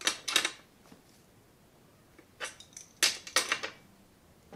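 Adjustable wrench clinking on the rear axle nuts of a child's steel bike as the training-wheel nuts are tightened down. A burst of sharp metal clicks comes at the start, then a pause, then another run of clicks past the middle.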